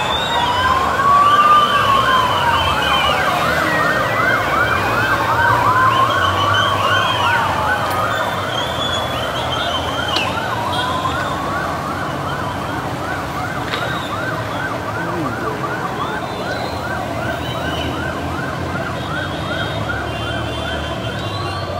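Several emergency sirens sounding together: a fast, rapidly repeating yelp over slower wails that rise and fall about every five seconds.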